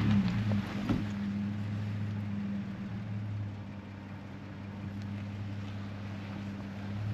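A motor vehicle's engine running at a steady speed, a low, even hum, with a couple of knocks in the first second.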